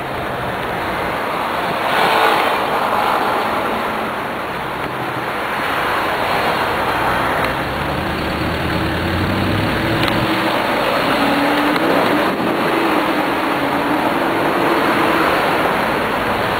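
Road traffic on a city street with car engines running close by. There is a short louder rush about two seconds in, and a car engine's note rises and wavers through the middle.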